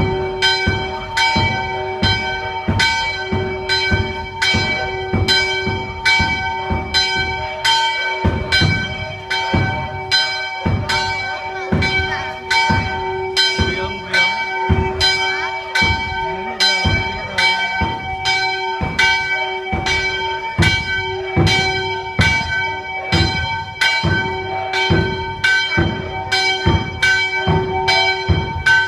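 Church bells ringing out the New Year, struck in a steady, quick rhythm of about one and a half strokes a second, each stroke ringing on under the next.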